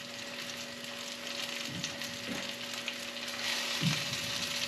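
Caribou roast searing in hot olive oil in a frying pan: a steady sizzle that grows a little louder near the end, the sign that the pan is hot enough for the meat to start cooking right away. A faint steady low hum runs underneath.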